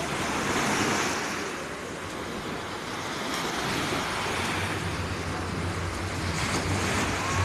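Sea waves breaking and washing up the shore: a steady rushing noise that swells about a second in and again near the end, with a low hum underneath.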